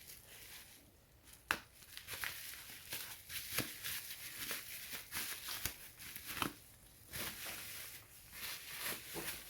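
Plastic packaging and bubble wrap rustling and crinkling, with scattered sharp clicks and snips as plastic ties are cut off the wrapped charging cable. The sharpest click comes about one and a half seconds in.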